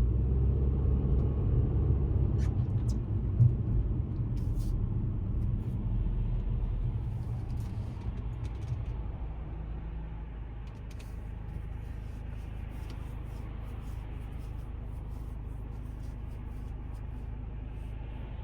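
Car cabin noise while driving on rain-wet roads: a steady low rumble of engine and tyres that eases off about eight seconds in and then holds lower, with faint scattered ticks.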